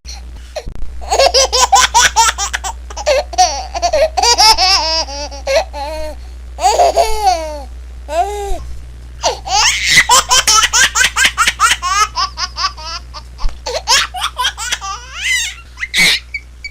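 Baby laughing in repeated fits of quick, high-pitched giggles and belly laughs, with short pauses and squeals between them.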